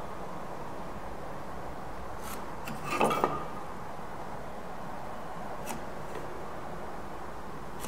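Pencil and a small try square being handled on a wooden board while marking out: light scratching and faint clicks, with two quick knocks and a short ring about three seconds in as the square is set against the wood.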